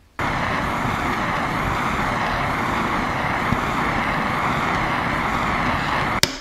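Gas torch burning with a steady roaring hiss as its blue flame heats a screw in an aluminium engine casing to free it. The torch starts abruptly and cuts off near the end, with a sharp metallic tap right at the close.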